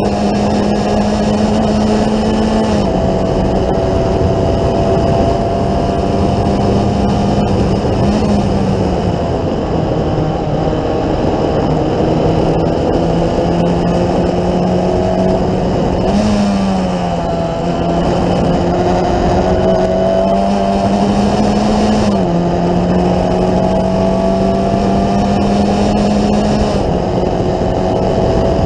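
Formula Ford 1600 race car's Ford Kent four-cylinder engine running hard, heard from on board, over heavy wind rush. Its pitch climbs slowly and jumps abruptly several times as the driver changes gear.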